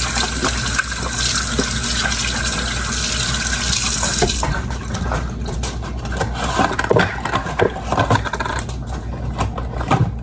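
Water running from a kitchen tap into a pot, a steady gushing that thins to a lighter stream about halfway through, with a few clinks in the second half.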